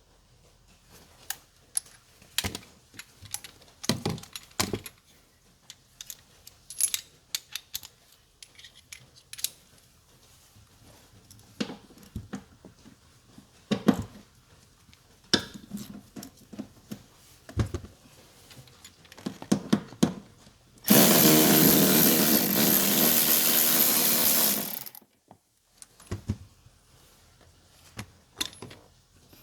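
Scattered clicks and knocks of hands working with tools and parts, and about two-thirds of the way through a small electric motor runs steadily for about four seconds, then stops suddenly.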